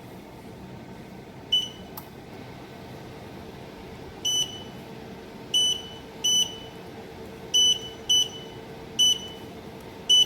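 Electronic beeps from a repaired LCD controller just powered on: about eight short, identical high beeps at irregular spacing. A sharp click comes about two seconds in. The beeps show the controller responding again after its files were restored.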